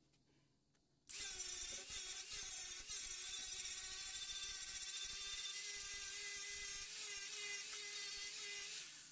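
Angle grinder starts about a second in and runs steadily, its abrasive disc grinding paint and rust off a car's steel door pillar down to bare metal.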